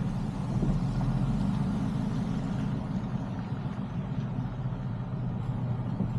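Road noise inside a moving Tesla Cybertruck: a steady low rumble with tyre hiss on top, the hiss easing about halfway through.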